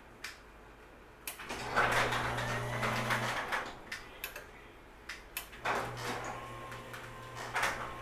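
Chamberlain C2212 chain-drive garage door opener responding to a newly programmed remote: a click, then its motor runs with a steady hum for about two seconds, and a few seconds later it clicks on and runs again.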